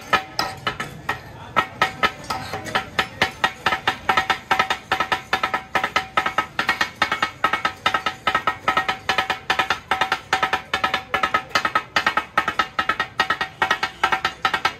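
Two steel blades chopping and clanging on a large flat iron griddle in katakat cooking, beating out a fast, steady rhythm of ringing metallic clacks. The strikes are sparse for the first second or two, then turn dense and even.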